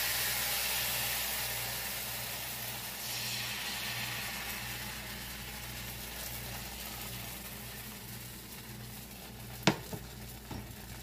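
Bánh xèo rice-flour batter sizzling in a hot skillet as the pan is tilted to spread it. The sizzle is loudest at first and fades steadily. One sharp tap comes near the end.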